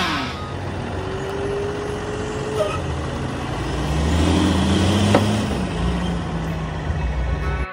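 Box truck's engine running as it drives past, a low rumble that swells about four seconds in, with a thin, slightly rising whine from about a second in and a sharp click a little after five seconds.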